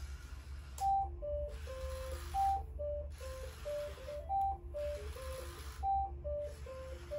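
An electronic virtual-pet toy beeping a repeating stepped little tune of single-pitch notes. Under it, the Purrble plush robot purrs in soft, even swells about once every one and a half seconds.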